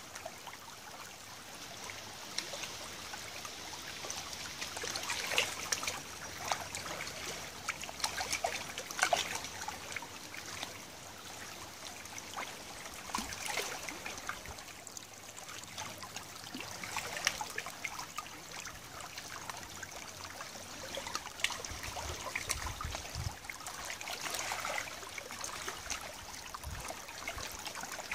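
Tidal river water lapping and trickling at the edge of a gravel bank, in uneven small splashes and crackles over a steady wash.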